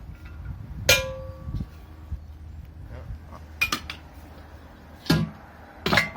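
Metal scrap parts being handled and knocked together, with one sharp ringing clang about a second in and several more clinks and clanks later.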